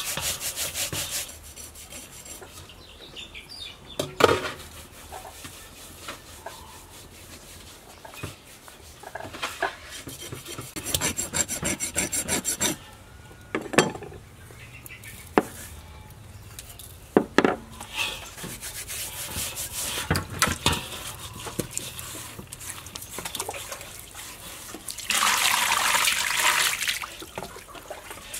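Hands scrubbing a whole snakehead fish with coarse salt in a stainless steel basin to clean it: scratchy rubbing strokes, with several sharp knocks against the basin. Near the end, a few seconds of water poured in over the fish.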